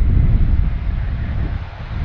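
Airbus A320 airliner flaring just before touchdown, its jet engines a low rumble mixed with heavy wind buffeting on the microphone.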